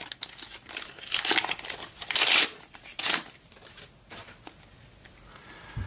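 Trading-card pack wrapper crinkling and tearing as a pack is handled and opened, in several short bursts, the loudest about two seconds in, then quieter.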